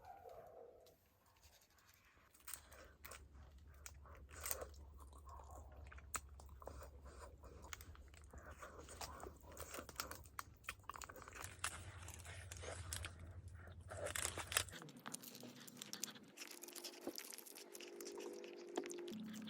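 Irregular small crunches and clicks close to the microphone, over a low steady hum that cuts off about three-quarters of the way through.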